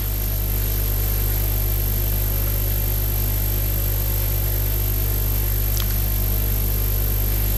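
Steady electrical hum and hiss from the lecture microphone and sound system, with one faint click about six seconds in.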